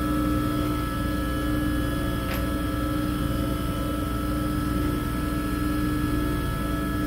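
Bench grinder running unloaded, a steady even hum, while the tool bit is dipped in water to cool. A faint brief tick about two and a half seconds in.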